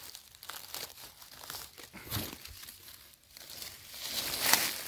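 Dry forest leaf litter rustling and crackling as someone moves through it, in irregular crackles that grow louder near the end.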